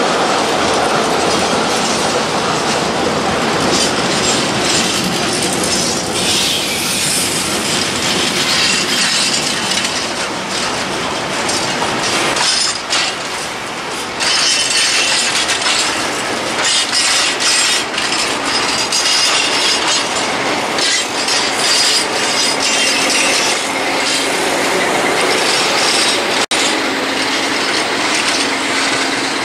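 Freight train of open coal wagons rolling past at speed, a continuous rumble and clickety-clack of wheels over the rails with high wheel squeal in the second half. A steady low diesel engine hum joins near the end as the locomotive comes alongside.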